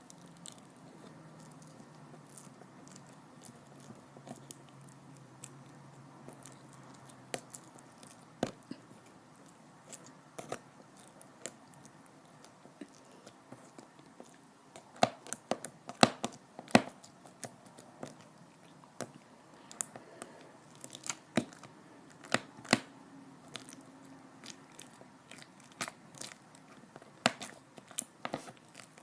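Foam slime being squeezed and stretched by hand, giving off irregular sharp crackles and pops. The crackling is sparse at first and comes thick and fast around the middle and again toward the end.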